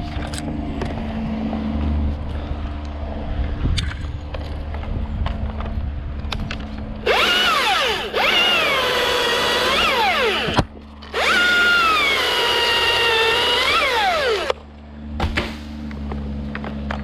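Husqvarna T540iXP battery chainsaw cutting wood in three bursts, starting about seven seconds in. The motor's whine sinks in pitch as the chain bites under load and rises again as each cut finishes.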